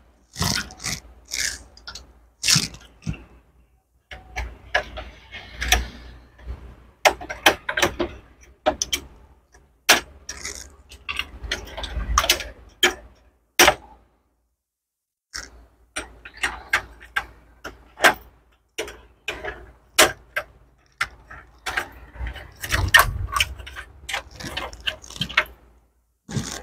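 Irregular clicks, taps and rattles of plastic and sheet-metal parts and cable connectors being handled while a Canon imageClass MF3010 laser printer is taken apart.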